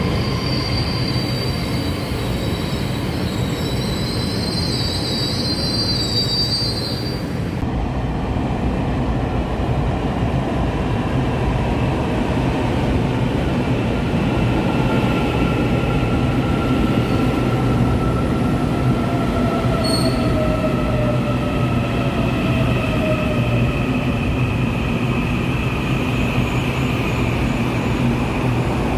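An EMU3000-series Tze-Chiang electric express glides along the platform as it arrives, with high squealing tones over the running rumble. After a sudden change about eight seconds in, an EMU800-series electric commuter train pulls into an underground station, its motor whine sliding down in pitch as it brakes.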